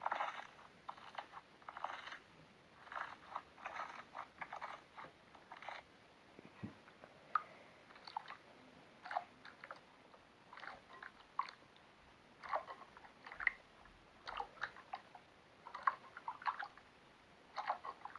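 Slime being squeezed and pressed by hand, making an uneven run of short, soft, sticky pops and squelches.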